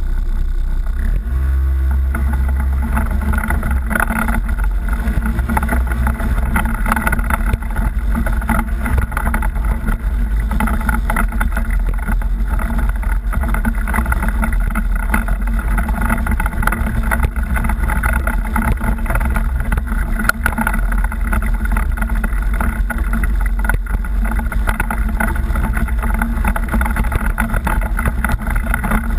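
Off-road vehicle engine running steadily at low speed, a heavy continuous rumble, while the vehicle crawls over rocks with frequent knocks and jolts.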